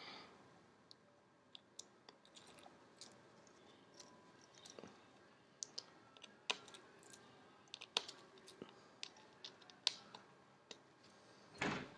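Faint, irregular small clicks and taps as fingers fit screws and small parts back into a disassembled Samsung Galaxy S4's frame and board. A brief louder rustle comes near the end.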